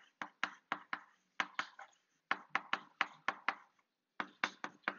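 Chalk tapping and clicking on a blackboard while capital letters are written: a quick, uneven run of sharp taps, pausing briefly twice.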